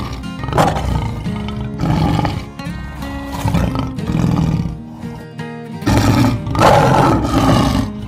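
Background music with a lion roaring over it in several rough bursts, the longest and loudest near the end.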